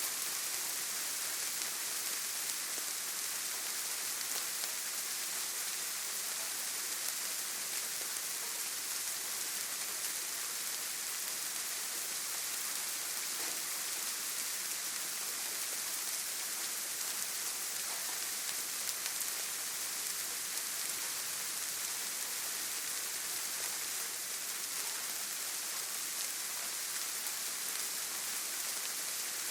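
Steady rain falling: an even hiss, strongest in the high treble with little low rumble, holding the same level throughout.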